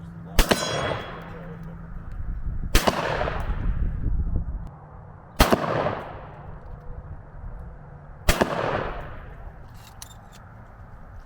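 Four shotgun shots fired about two and a half to three seconds apart, each a sharp blast followed by a long echoing tail.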